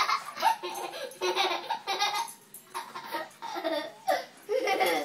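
A young boy laughing hard in several bouts of giggles, with short breaks between them.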